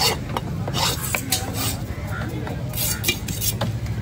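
Broad fish-cutting knife scraping scales off a fish on a wooden chopping block: a run of short rasping strokes with sharp clicks of the blade against the wood.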